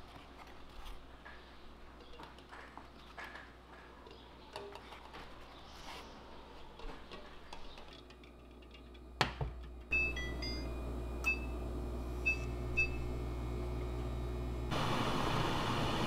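Eggs set one by one into a stainless steel pot of water, with light knocks and handling sounds. About nine seconds in, a sharp clunk as the pot goes onto a glass-top electric cooktop. The cooktop then starts a steady low hum with a few short beeps from its touch controls, and a louder steady noise joins about fifteen seconds in.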